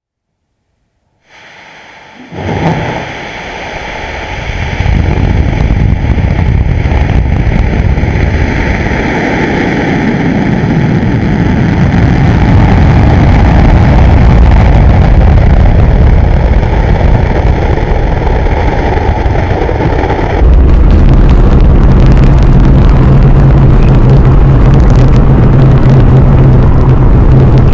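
Atlas V rocket's RD-180 first-stage engine at liftoff. It starts as a low rumble with a sharp bang, then builds over a few seconds into a loud, steady roar with crackle. The roar changes character about 20 seconds in, and a steady low hum joins it.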